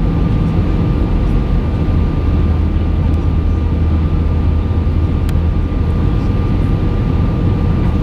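Steady cabin noise inside an Airbus A319 in flight: an even, deep rumble of engines and airflow with a faint steady whine over it.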